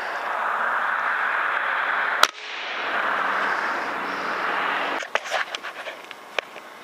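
A PCP air rifle fires once about two seconds in, a single sharp crack over a steady hiss of background noise. After the hiss stops suddenly, a few light clicks and taps follow.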